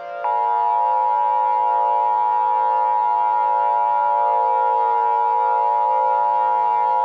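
Emergency Alert System two-tone attention signal: a steady dual tone of about 853 and 960 Hz. It comes in about a quarter second in and holds unbroken, announcing that an emergency voice message follows.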